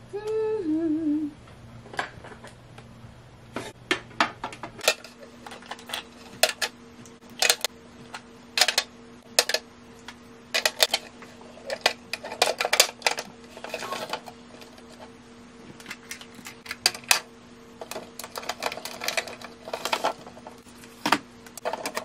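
Hard plastic clicking and clacking as makeup items and small acrylic drawers are handled and set into a clear acrylic organizer, in irregular sharp taps. A short hummed phrase, falling in pitch, comes about a second in.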